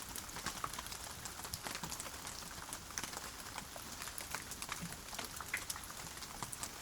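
Steady rain falling, with many individual drops ticking sharply on a surface. No thunder.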